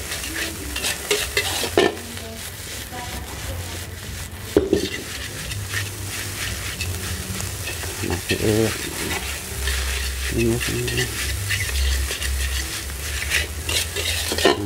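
Fried rice sizzling in oil as a metal spatula scrapes and tosses it around a metal wok, with a few louder clanks of spatula against the wok.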